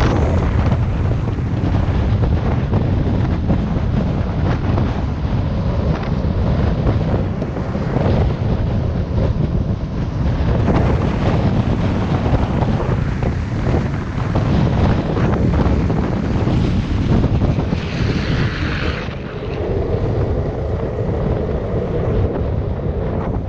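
Heavy wind buffeting on the camera's microphone at downhill skateboarding speed, over the rumble of skateboard wheels rolling on asphalt. A brief, sharper hiss comes in about eighteen seconds in.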